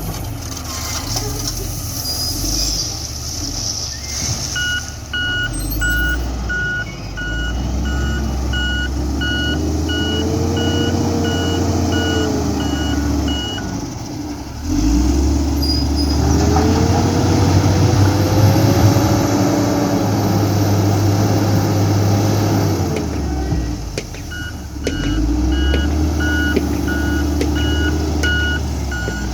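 Diesel engine of an XCMG ZL50GN wheel loader running and revving up and down under working load. A reversing alarm beeps steadily about twice a second in two spells, as the machine backs up.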